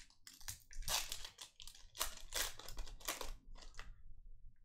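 Plastic foil trading-card pack being torn open and crinkled: a string of irregular crackling rustles.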